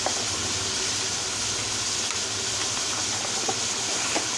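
Chicken cooking in its juices in an aluminium pot over a gas flame: a steady sizzling hiss, with a couple of faint clicks.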